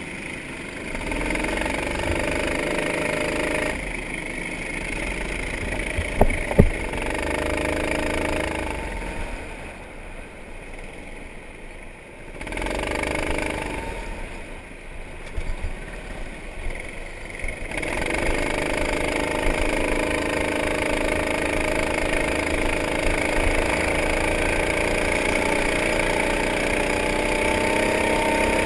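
Go-kart engine heard from on board, revving up and easing off in turn as the kart accelerates and slows for corners. Its pitch climbs steadily over the last ten seconds. There are a couple of sharp knocks about six seconds in.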